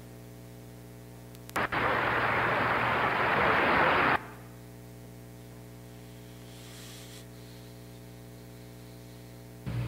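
Applause from archival film of a standing ovation, played over the hall's speakers: a dense wash of clapping with no high end, starting abruptly about one and a half seconds in and cut off suddenly about four seconds in. Around it, a steady mains hum with a buzzy row of overtones.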